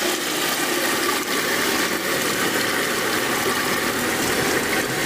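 Water pouring steadily into the wash tub of a twin-tub washing machine as it fills over the clothes, a continuous rushing.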